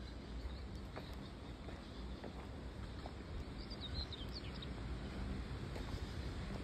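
Open-field ambience: a steady low rumble of wind on the microphone, with a few short bird chirps around the middle and occasional faint clicks of footsteps on a gravel path.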